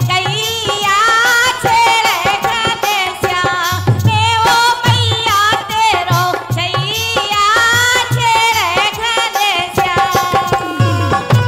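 A woman singing a Kartik geet folk song in a high voice with ornamented, gliding melody lines, accompanied by a steady low hand-drum beat.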